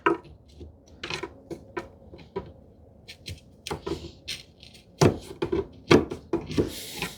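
Dried glue squeeze-out being scraped and picked out of the groove in a wooden drawer side with a hand tool: irregular light clicks and scrapes, busier and louder in the second half.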